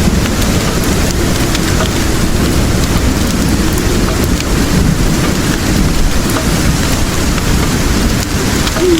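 Steady rain with a low, continuous rumble of thunder beneath it and scattered faint ticks through the hiss.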